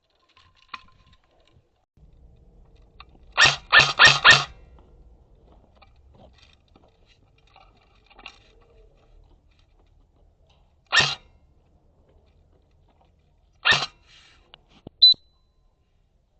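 Airsoft replica shots: a quick string of four shots, then two single shots a few seconds apart, and near the end a short sharp crack with a ringing high ping.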